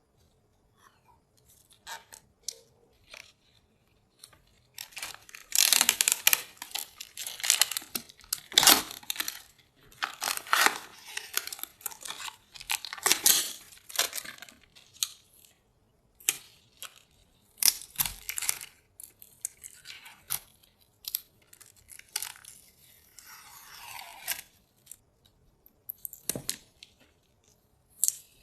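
Packaging being torn and handled by hand: irregular ripping, crinkling and scraping sounds, sparse at first and busiest from about five seconds in.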